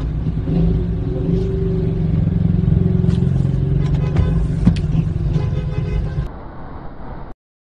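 Low, steady engine and road rumble heard inside a car's cabin, with a few faint clicks midway; it drops off and cuts out abruptly near the end.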